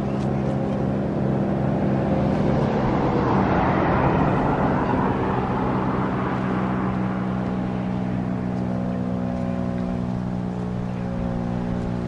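Federal Signal STH-10 siren sounding a low, steady tone with overtones, late in its 3-minute alert as it winds down. A passing vehicle's rushing noise swells and fades from about two to seven seconds in.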